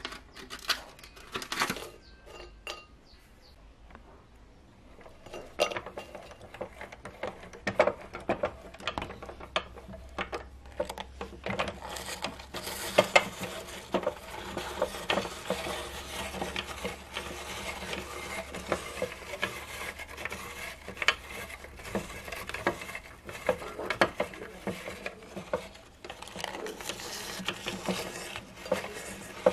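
A few clinks of biscuits against a glass plate, then a meat grinder's auger crushing cream-filled biscuits. The crunching and cracking, with metal scraping, starts about five seconds in and grows dense and continuous from about twelve seconds on.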